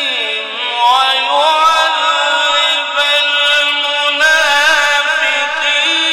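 A man reciting the Quran in one long, ornamented melodic phrase held without a break: the melody dips at the start, then climbs and winds, moving up to higher notes about four seconds in.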